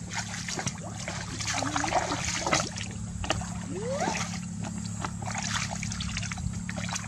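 Shallow muddy water splashing and sloshing irregularly as a person wades and gropes through it by hand, over a steady low hum.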